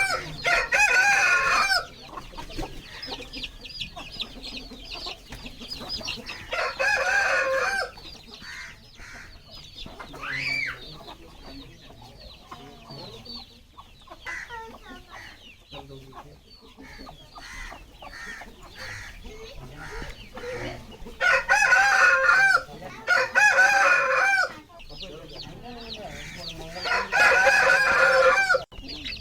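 Aseel roosters crowing loudly several times: at the start, about seven seconds in, twice in a row past the twenty-second mark and again near the end. Softer clucks and short high chirps from the flock fill the gaps between crows.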